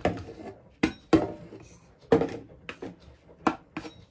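Irregular sharp knocks, about seven, with scraping between them, as dry flour mix is emptied into a stainless steel stand-mixer bowl and a plastic bowl and wooden spoon are tapped against it.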